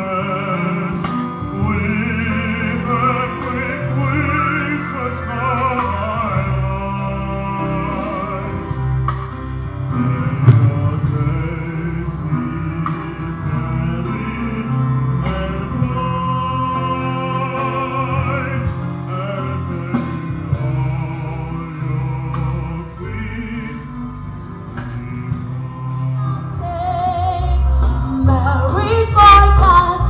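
Classical-style singing with wide vibrato on sustained notes, over continuous musical accompaniment.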